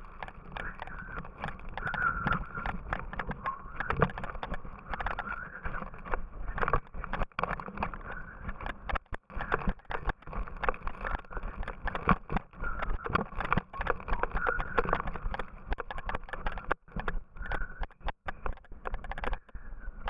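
Yooner's ski sliding down a snowy slope: a continuous rough scraping over the snow with a low rumble and many irregular clattering knocks from bumps in the ride.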